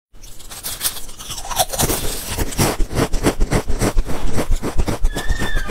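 Purple potato chips and their plastic bag crackling as they are handled, a dense run of crisp clicks. A short high squeak sounds near the end.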